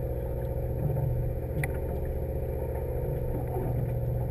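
Fishing boat's engine idling, a steady low hum with an even pulse.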